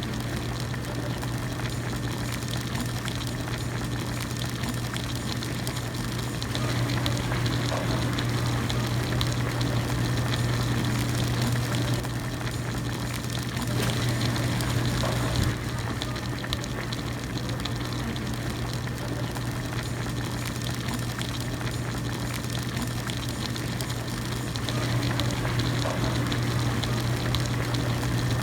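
Hotpot broth boiling steadily in a pot, a continuous bubbling hiss over a steady low hum. The boil grows louder for a stretch about a third of the way in, drops back, and rises again near the end.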